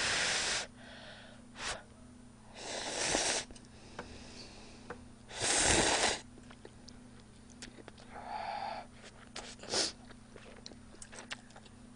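Instant cup-ramen noodles being slurped, three long airy slurps a few seconds apart, the third the loudest, with a softer one later and small mouth clicks between.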